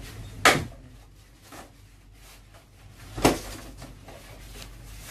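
Two sharp knocks about three seconds apart, with a few fainter ones between, from hands fitting a wash bag onto a wall-mounted split AC indoor unit.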